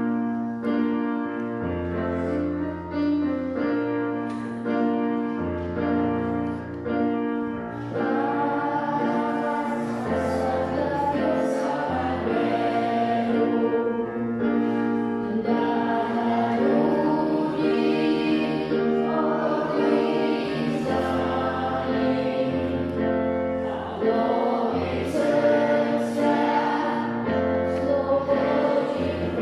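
A Yamaha electronic keyboard plays a chordal introduction with a bass line. About eight seconds in, a children's choir starts singing a hymn-like song over the keyboard accompaniment.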